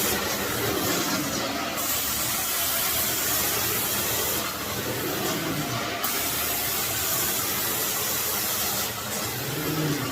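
Carpet-cleaning extraction wand on a Mytee Escape truckmount, spraying and sucking in a steady hiss. The high spray hiss drops out for a second or so three times, as the wand strokes across the carpet.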